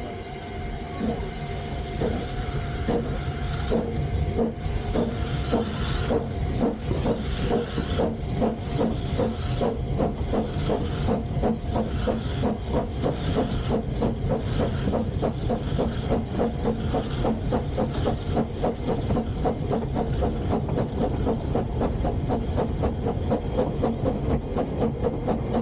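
Narrow-gauge steam locomotive pulling away with its train. Its chuffing exhaust beats start slowly and quicken steadily, over a hiss of steam from the open cylinder drain cocks.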